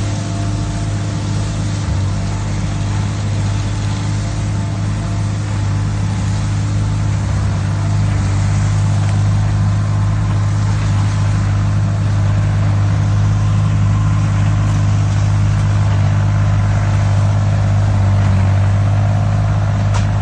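Tractor engine running steadily under load while working a branch sweeper, a constant low drone with a hiss of mechanical noise over it, growing slightly louder partway through.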